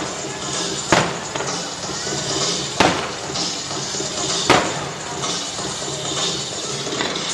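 Three loud firework shell bursts, a little under two seconds apart, over the display's accompanying music. Each bang is sudden and followed by a short rumbling echo.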